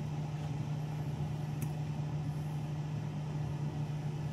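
Steady low hum with an even background hiss, and a faint tick or two.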